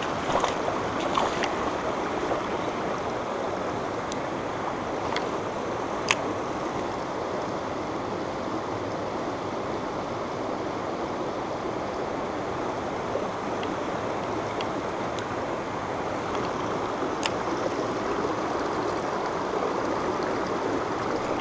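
Shallow mountain stream running over stones and pebbles, a steady even rush of water, with a few sharp clicks scattered through it.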